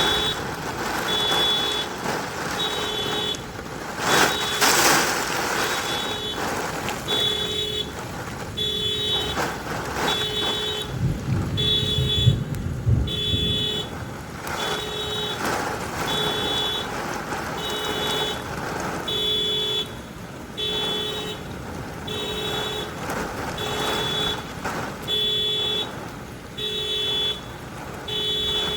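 A car alarm sounding a steady repeating beep, about one every one and a half seconds, set off by the thunder. Rain is falling, with a loud sudden burst about four seconds in and a deep thunder rumble around eleven to thirteen seconds in.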